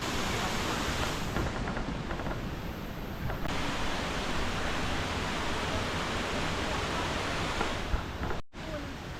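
Steady rush of falling water from a waterfall, an even noisy roar with no distinct events, breaking off briefly near the end.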